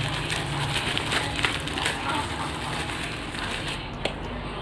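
Thin plastic courier bag crinkling and crackling as hands pull and tear at it to open it; the crackling dies down near the end, with one sharp click.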